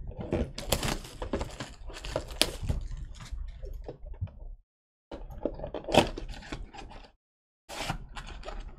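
Trading-card pack being torn open and its cards handled: crinkling wrapper and quick, irregular clicks of card edges, with two brief gaps of silence.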